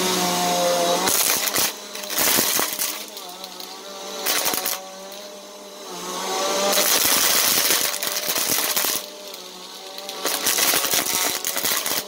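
Upright vacuum cleaner running on a shag rug, its motor hum shifting in pitch as it is pushed back and forth, with loud stretches of rapid rattling and clicking as plastic pony beads are sucked up.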